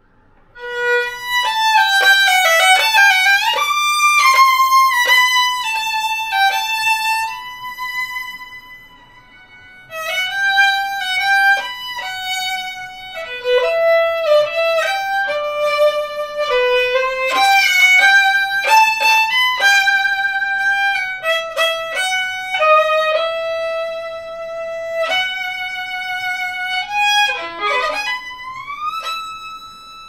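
Solo violin played live with the bow, a slow melody of sustained notes. It dips nearly to silence for a moment about eight seconds in, then resumes, and near the end it swoops down and slides up to a held high note.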